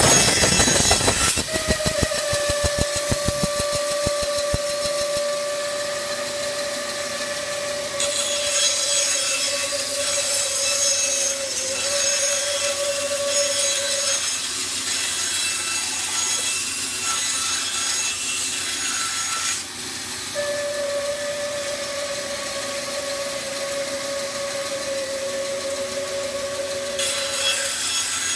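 Bandsaw ripping thin strips from wood: a steady whine, with a high hiss of the blade in the wood that comes and goes as stock is fed through.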